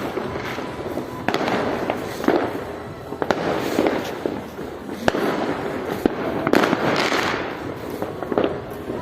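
Fireworks going off: about ten sharp bangs at irregular intervals, over a continuous rumble and crackle of more fireworks.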